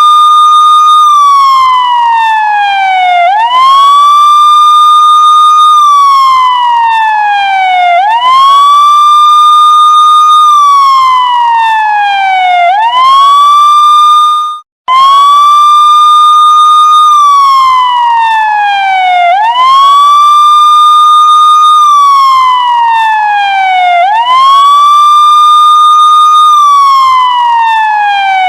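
Police siren on a wail cycle: each call rises quickly, holds high, then glides slowly down, repeating about every four and a half seconds. The sound drops out for a moment about halfway through, and the cycle starts over.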